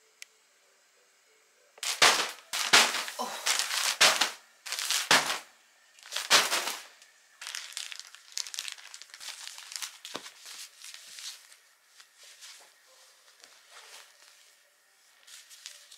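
Diaper packaging torn open: a run of loud rips and rustles starting about two seconds in, then softer, irregular crinkling of plastic as Huggies disposable diapers are taken out and handled.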